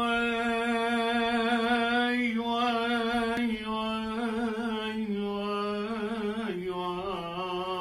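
A solo man's voice singing the opening of an Iraqi maqam in maqam Saba, holding long notes with wavering melismatic ornaments and stepping down in pitch twice in the second half.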